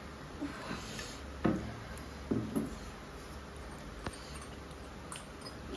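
Eating sounds: a fork tapping and scraping in a bowl of noodles, a few short knocks and clinks.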